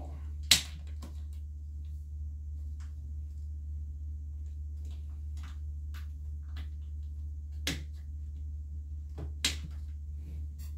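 Garden shears snipping through the tough, woody stems of antler reishi (Ganoderma multipileum). There is a sharp snip about half a second in and two more near the end, with faint crackling ticks between them as the fruit bodies are handled.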